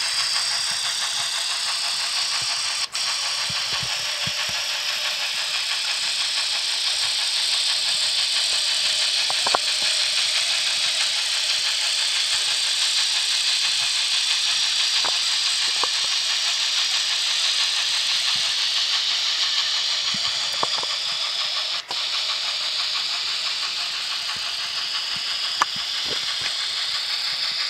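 N-scale GHQ Northern Pacific W3 Mikado steam locomotive running steadily, its Loksound DCC decoder playing steam running sound through a small tender speaker. The gear whine is no longer heard now that the mechanism has warmed up in break-in. The sound drops out for an instant twice.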